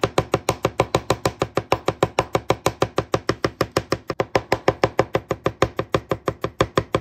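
Rapid, even knife strokes on a cutting board, about seven a second: a rectangular-bladed chef's knife mincing garlic cloves.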